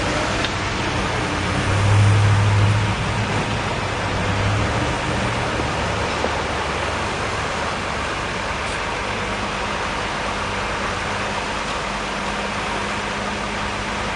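Large truck-mounted crane's diesel engine running steadily under a constant hiss, the low rumble swelling for about a second around two seconds in.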